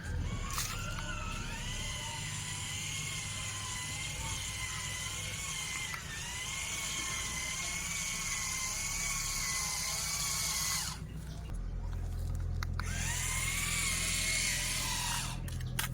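Small electric motors of a radio-controlled model whining at a high, slightly wavering pitch, stopping about eleven seconds in and starting again a second later for a few more seconds.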